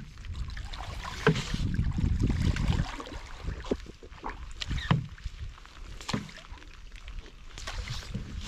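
Wooden canoe paddles dipping and splashing in lake water during paddling, with a few sharper strokes standing out, over a steady low rumble.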